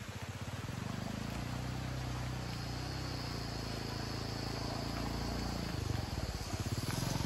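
Small motorcycle engine running slowly close by, a steady low hum with a fine rapid pulse that fades about six seconds in. A steady high-pitched buzz joins it about two and a half seconds in.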